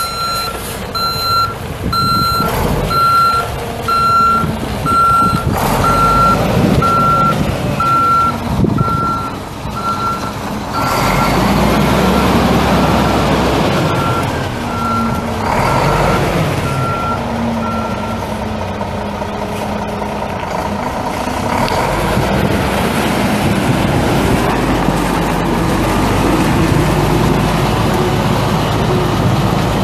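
A 1993 Mack CH613 semi truck's backup alarm beeps about once a second as the truck reverses, stopping about two-thirds of the way through, over its Mack E7 12-litre inline-six turbo diesel running under load. The engine grows louder partway through.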